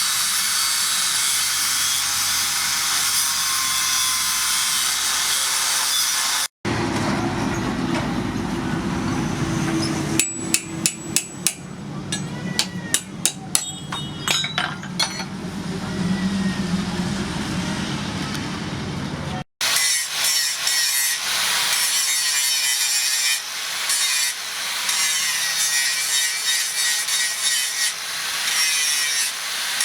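Steel being worked by hand: first a steady grinding hiss, then a run of sharp hammer blows on metal, each one ringing, then quick back-and-forth rasping strokes, as of a file or saw on the steel.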